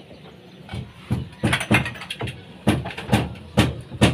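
Hammer strikes on the wooden slab formwork, a blow about every half second, starting about a second in.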